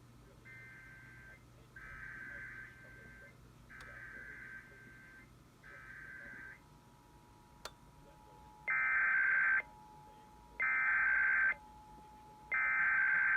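Emergency Alert System SAME header for an Arizona monthly test: bursts of warbling digital data tones, each about a second long. Four fainter bursts come first, then three much louder ones about two seconds apart near the end, with a faint steady tone underneath from about halfway.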